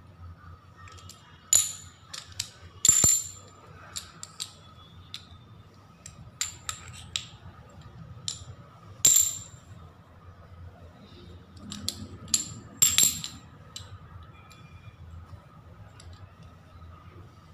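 Small glazed ceramic tiles clinking against one another and clicking down onto a hard table as they are taken off a stack and set out one at a time: irregular sharp clicks, each with a brief ring, over a faint steady hum.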